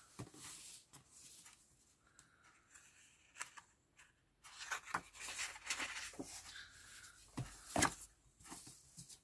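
Sheets of scrapbook paper rustling and sliding as they are handled and turned over, with a few sharp paper flicks; the loudest comes near the end.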